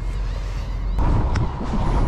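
Wind buffeting the microphone over open water, a steady low rumble that jumps louder and fuller about a second in.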